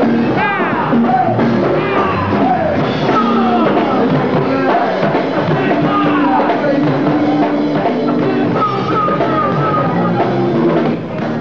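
Go-go band music with a vocalist singing over the band's steady groove.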